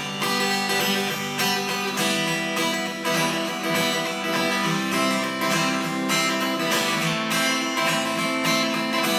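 Acoustic guitar strummed steadily in an instrumental break between verses of a country song, with no singing.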